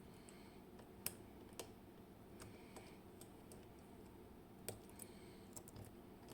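Near silence broken by a handful of faint, sharp clicks spaced irregularly, the clearest about a second in and at nearly five seconds: small metal clicks from the dimple-lock cylinder and picking tools being handled.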